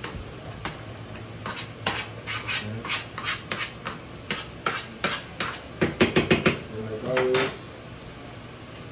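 A metal utensil mashing boiled potatoes in a metal saucepan, clicking and scraping against the pan in quick strokes that come thickest and loudest about six seconds in.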